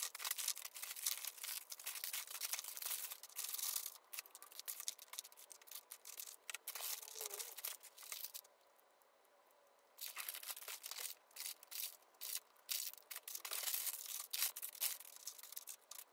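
Crinkling, rustling and light clicking as small sweets, biscuits and wrapped candies are laid by hand into a cardboard platter box. The sounds stop for about a second and a half just past the middle, then start again.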